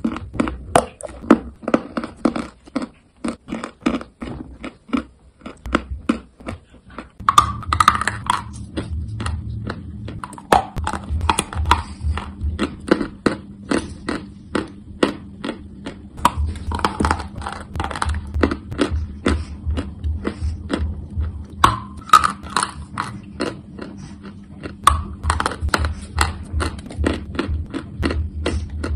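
Close-miked crunching and chewing of chalk, with many sharp crunches a few times a second. A steady low hum joins about seven seconds in.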